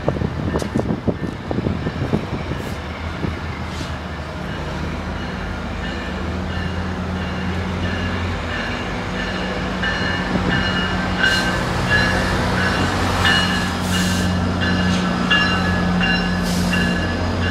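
GO Transit commuter train's diesel locomotive approaching, its engine drone growing steadily louder. High-pitched squeals and clicks join about ten seconds in. Wind buffets the microphone in the first few seconds.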